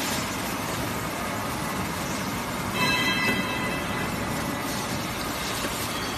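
CNC servo pipe-bending machine running with a steady mechanical noise. A short, high whine of several tones comes about three seconds in, while the bending head moves through a bend.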